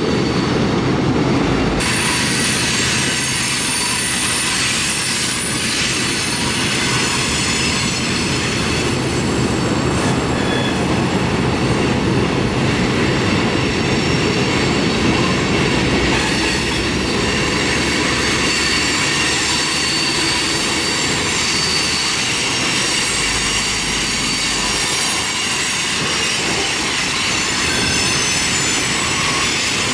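Freight cars of a long train rolling past: a steady, loud wheel-on-rail rumble, with thin high-pitched wheel squeal joining about two seconds in.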